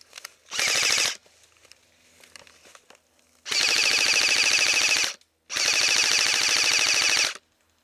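Airsoft rifle firing on full auto in three bursts: a short one of about half a second, then two longer ones of nearly two seconds each, with a short gap between them.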